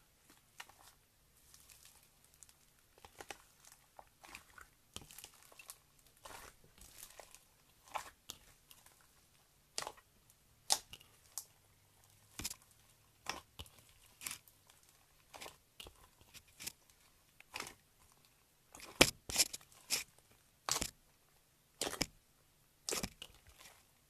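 Hands squeezing and stretching slime packed with small foam beads (floam): irregular crunchy crackles and sharp pops, with the loudest pops in the last five seconds.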